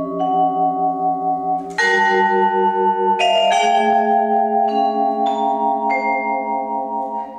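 Vibraphone played with four mallets: chords struck and left ringing over one another, the notes pulsing as they sustain. Strong new chords come about two and three seconds in, then several lighter single strokes, and the sound dies down near the end.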